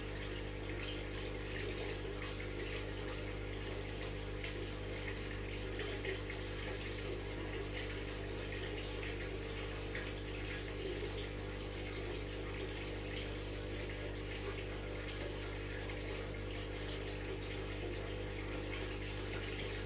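Aquarium water circulation: a steady trickling, bubbling fizz of water over a constant low hum from the tank's pump.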